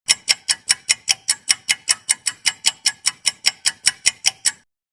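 Ticking clock or timer sound effect: fast, even ticks, about five a second, that stop suddenly near the end.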